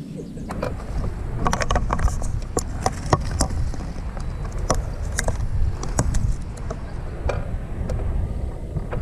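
Wind rumbling on the microphone aboard an open boat, with a scatter of sharp clicks and knocks from about half a second in until about seven seconds.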